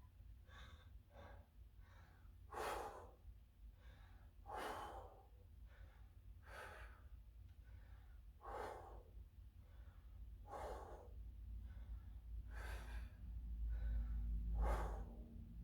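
A man breathing hard through a weightlifting set, with a strong, forceful exhalation about every two seconds, seven in all. A low rumble swells near the end.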